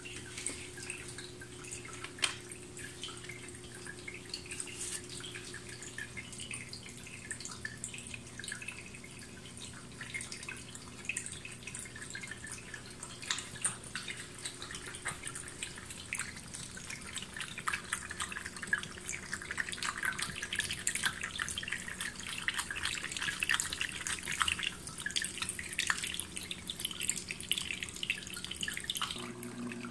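MOSPRO pet water fountain running nonstop, water trickling and dripping from its flower-shaped top, while a cat laps at it with small wet clicks that come thicker in the second half.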